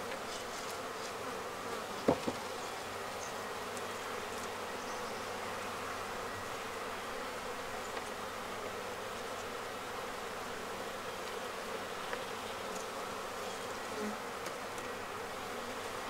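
Honeybees buzzing around an open hive: a steady, even hum. There is one sharp knock about two seconds in.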